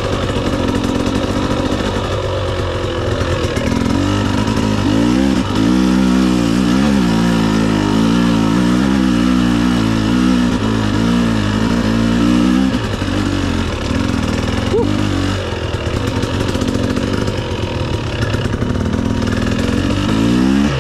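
Dirt bike engine under way on a trail, its pitch rising and falling over and over as the throttle is worked, hardest through the middle stretch.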